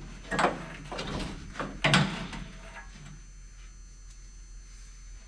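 Old rubber fuel hose being pulled out of a race car, knocking and scraping against the metal body and roll cage a few times in the first two seconds, the loudest about two seconds in, then only a steady background hum.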